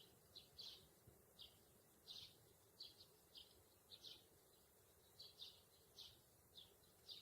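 Faint, quick high-pitched chirps repeating irregularly, two or three a second, like a small bird chirping, over near silence.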